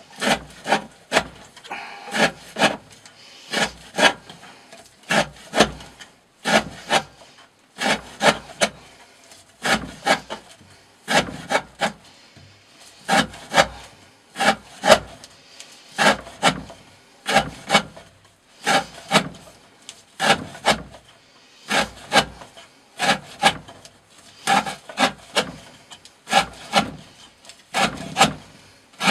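Green Thorn Hati D2 steel knife cutting through 20 mm rope again and again, about two sharp slicing strokes a second with short pauses, as part of an edge-endurance test.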